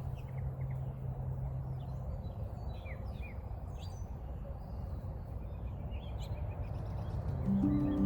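Small birds chirping, with short scattered calls over a low steady background rumble. A held low tone fades out about two seconds in, and background music with a sustained chord comes in near the end.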